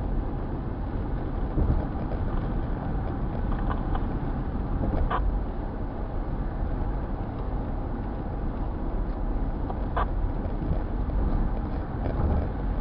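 Car driving, with a steady rumble of road and engine noise. Two brief high squeaks come about five and ten seconds in.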